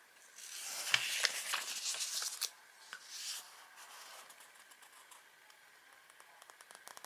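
Paper rustling and handling: a small booklet rubbing against a cardboard shoe box and its pages being handled, with small clicks. It is loudest in the first two and a half seconds, with one more brief rustle after that and then a few faint ticks.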